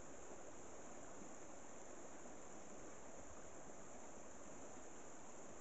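Steady rush of a fast-flowing stream over rocks, with a constant high-pitched insect drone, likely crickets, above it.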